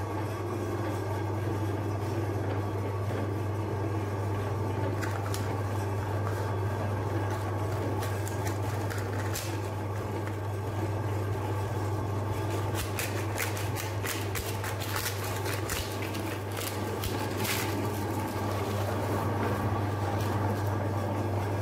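Electric meat grinder's motor running with a steady low hum. From about eight seconds in, wafer ice cream cones crackle and crunch in rapid irregular clicks as the auger grinds them into crumbs.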